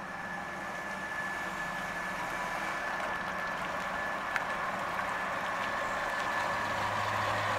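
1961 Ford Galaxie Sunliner driving slowly, its engine running steadily and growing gradually louder as it approaches. A single short click about four and a half seconds in.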